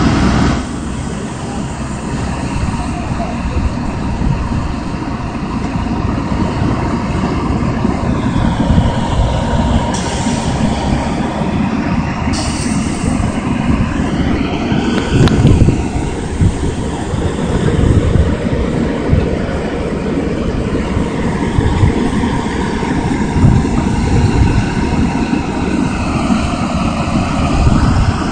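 Caterpillar 320C excavator's diesel engine running hard under load as the machine, stuck in swamp mud, works its hydraulics to free itself, with a high whine that dips and rises a few times.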